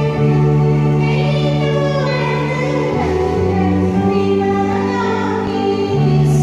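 Small church choir, mostly women's voices, singing a Tamil Christian song into microphones. Under the voices, sustained low accompaniment notes change pitch every few seconds.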